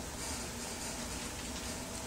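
Steady hiss of background noise with a faint low rumble and no distinct event: room tone.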